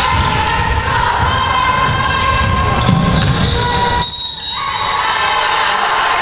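Game noise on a hardwood gym floor: players running and the ball bouncing, with voices in the hall. About four seconds in, a referee's whistle gives one short, shrill blast to stop play for a call.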